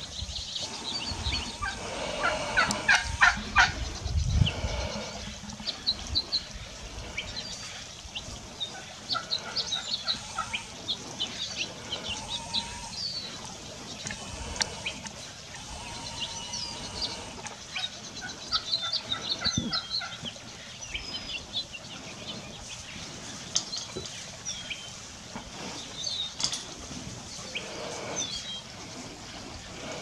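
Wild turkey tom gobbling, a loud rattling call about two to four seconds in, with small songbirds chirping throughout.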